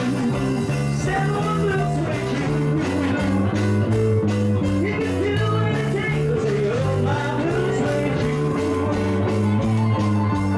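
Live band playing amplified dance music: a singing voice over electric guitar, keyboards and bass, with a steady drum beat.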